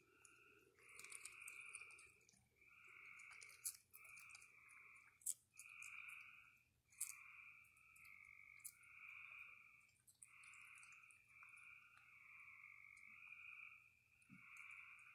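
Faint chorus of frogs calling: overlapping trills, each lasting up to about a second, following one another without a break. A few sharp crunching clicks of a raccoon chewing food stand out over the chorus.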